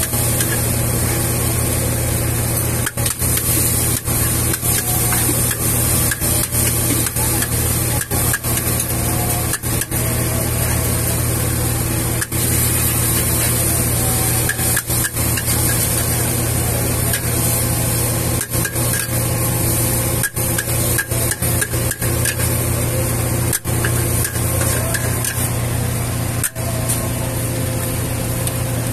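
Noodles stir-frying in a large wok over a gas burner: a steady roar from the burner and the frying, with the metal spatula scraping against the wok.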